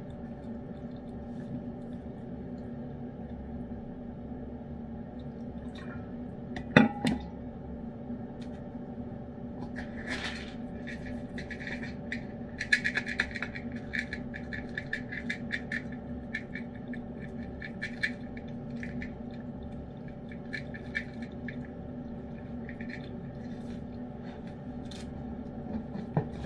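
Cat eating wet food from a ceramic dish: runs of rapid small wet clicks from chewing and licking, heaviest in the middle stretch, over a steady low hum. A single sharp knock about seven seconds in.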